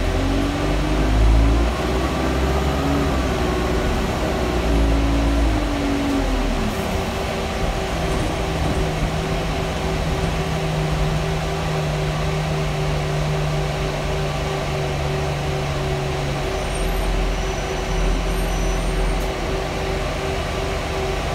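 Interior of an Alexander Dennis Enviro400 bus under way: a constant loud fan drone runs throughout. Over it the diesel engine note rises through the first several seconds, then holds at a steady pitch until about three quarters of the way through, when it falls away.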